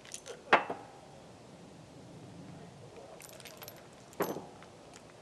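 Metallic clicks and clinks from a .38 Special snub-nose revolver being opened and its cartridges handled. There is a sharp clack about half a second in, a quick flurry of small clinks around three seconds, and another clack a second later. The round being checked had failed to fire from a light primer strike.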